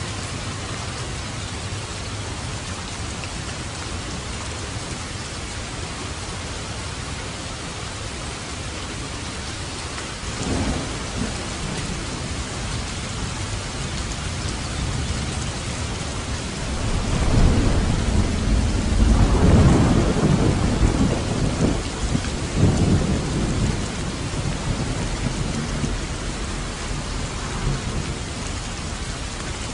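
Steady rain with thunder: a short rumble about a third of the way in, then a longer, louder roll of thunder past the middle that fades over several seconds.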